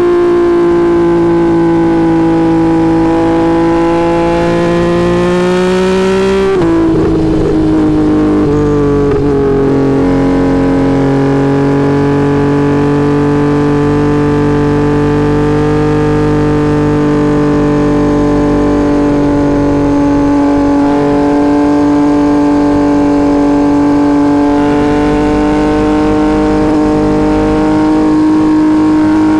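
2022 Yamaha XSR900's inline-three engine running at highway speed through a Kelpi full exhaust with a shorty muffler and no baffle, heard from a microphone under the seat. The engine note climbs gently, drops sharply about six and a half seconds in, then holds steady.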